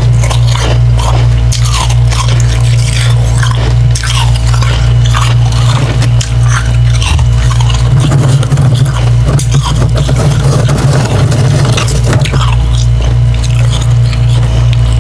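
Biting and chewing slushy ice chunks made from refrozen humidifier frost dipped in water, a run of irregular wet crunches. A steady low hum runs underneath.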